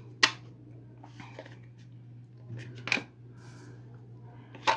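Tarot cards being shuffled and handled, giving three sharp clicks of the cards (just after the start, about three seconds in, and at the very end) with faint rustling between, over a steady low hum.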